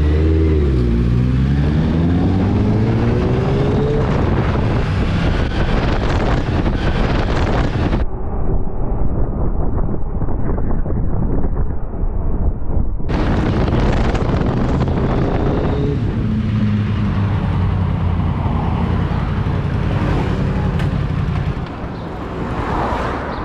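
Yamaha MT-10's crossplane inline-four engine revving up as the bike accelerates, its pitch rising over the first few seconds, then running hard with wind rush. For about five seconds in the middle the sound turns dull and muffled. Later the engine runs steadily at lower revs and quietens near the end.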